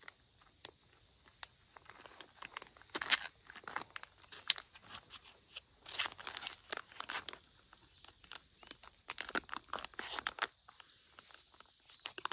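A packet being torn open and crinkled by hand, in irregular bursts of crackling.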